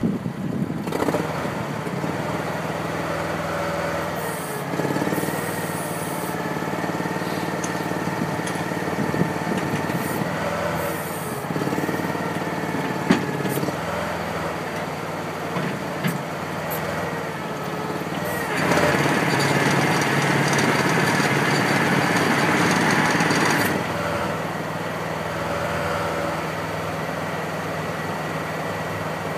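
Boat motor running steadily at low speed with a wavering whine, growing louder and rougher for about five seconds past the middle before settling back.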